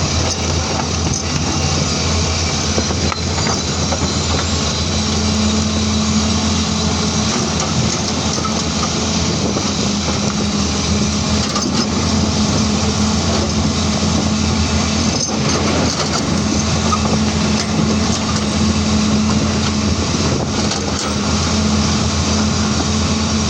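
CAT 336D excavator's diesel engine running steadily under load with a low drone, and a few faint knocks of rock being dug.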